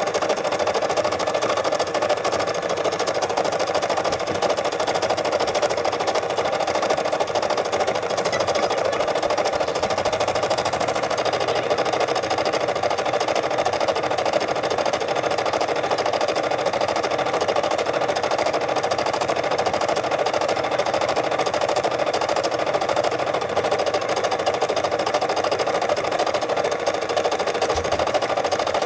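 Brother SE600 embroidery machine stitching continuously at a steady pace, its embroidery unit moving the hoop under the needle.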